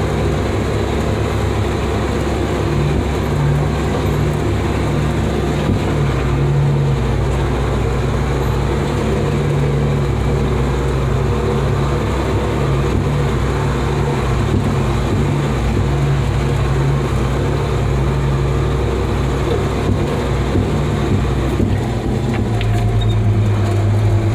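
Heavy diesel truck engine, the Badger carrier's 8.3-litre Cummins inline-six, running steadily under way, its pitch stepping up and down a few times as the truck is driven.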